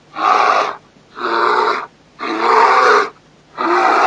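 Angry creature sound effect: four harsh, raspy bark-growls, each about half a second to a second long, coming roughly once a second.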